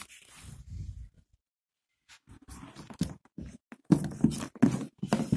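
Handling noise from multimeter test leads and probes being moved and repositioned: irregular rustles and light knocks, loudest about four seconds in.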